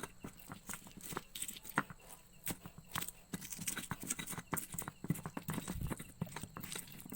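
Close-miked eating sounds: a spoon clicking and scraping on a plate of fried rice, with chewing, in irregular clicks several times a second.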